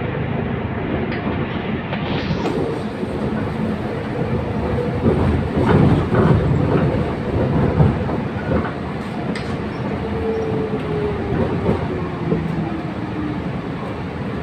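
Steady rumble of a moving road vehicle heard from inside its cabin, with a few knocks around the middle and a whine that falls slowly in pitch near the end.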